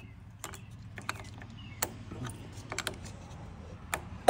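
Light, irregular metal clicks of a hand wrench tightening the nut on a riding lawn mower's positive battery terminal.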